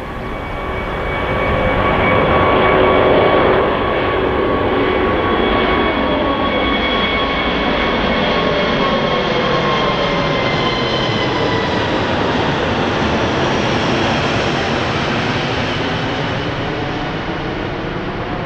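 Airbus A380's four Rolls-Royce Trent 900 turbofans at climb power as the airliner passes overhead after takeoff. A loud jet roar with a whine that slowly falls in pitch as it goes by, loudest a few seconds in.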